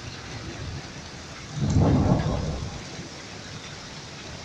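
Steady rain falling, with a clap of thunder about a second and a half in: a deep rumble that lasts about a second and then fades.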